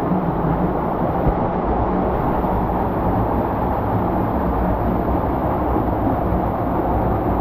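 Waterfall pouring into a pool: a steady, loud rush of water.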